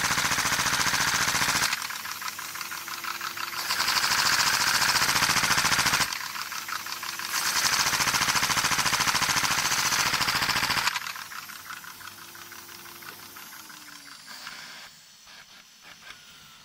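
LEGO model butterfly engine running in three bursts of a few seconds each: a rapid, hissing mechanical clatter. After the third burst it winds down with a falling tone and fades.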